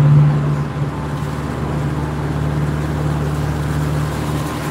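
Tour boat's engine running steadily with a low drone, heard from the open deck; a little louder in the first second.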